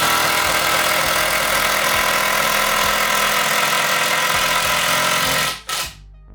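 Milwaukee M12 brushless cordless drill driving a wood screw into a 2x4 stud. The motor runs under load at a steady pitch, then stops suddenly about five and a half seconds in as the screw goes all the way in.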